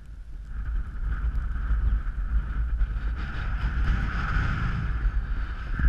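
Wind buffeting an action camera's microphone, heard as a low rumble, with a steady higher-pitched hiss that grows louder about half a second in and is strongest past the middle.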